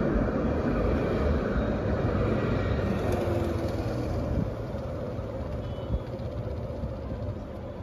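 Alstom Citadis tram rolling past close by and pulling away along the track, its rumble slowly fading.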